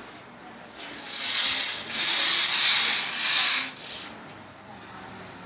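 Roll-up bamboo slat blind being worked by its pull cord: a raspy rustle of cord and slats that starts about a second in, grows louder, and stops about two-thirds of the way through.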